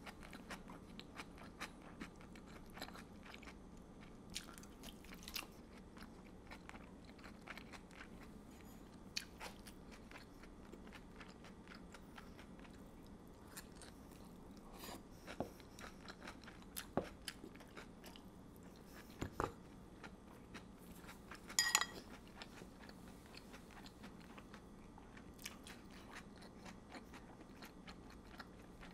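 Close-miked eating of stir-fried chicken and bell peppers: quiet chewing and soft crunches, with scattered short sharp clicks and a louder cluster of them a little past two-thirds through.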